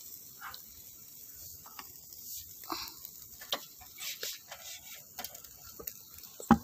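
Chicken satay grilling on a wire rack over bamboo embers: scattered faint crackles and clicks with a light hiss, and one sharp click near the end.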